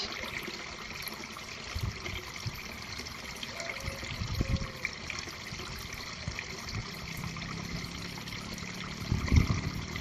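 Small knocks and handling of mini drill parts as the collet nut and ring are taken off, over a steady background hiss.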